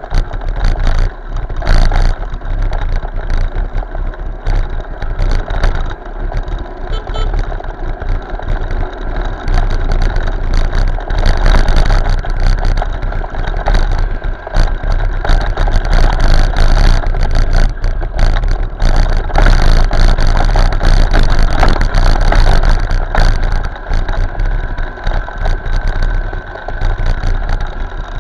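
Road noise of a moving motorbike recorded by an action camera on board: the engine and traffic under constant wind buffeting on the microphone, loud throughout.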